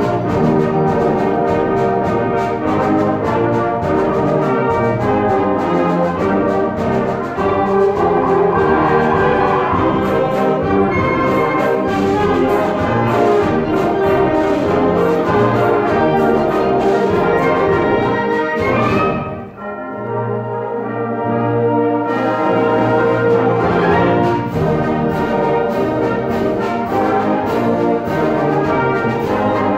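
High school symphonic band (woodwinds and brass) playing a piece with full sound, brass prominent. About two-thirds of the way through, the music drops away briefly to a low held note, then the full band comes back in.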